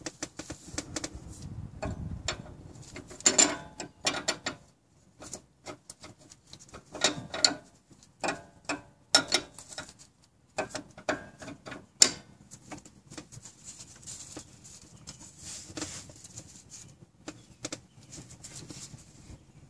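Steel flare nut wrench clinking and scraping against the power steering line's flare nut and the steering rack fitting as it is worked onto the nut: a run of irregular clicks and clanks with short pauses, the sharpest a little past halfway.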